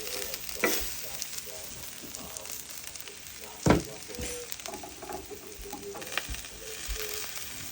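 Salmon and vegetables sizzling on a hot grill, a steady crackling hiss. A few light clicks and one sharp knock in the middle, like a utensil on the grill.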